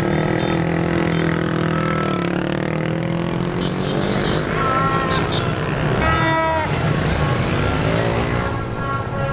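Many motorbike engines running in dense street traffic, with short repeated horn honks; one engine note drops about two seconds in.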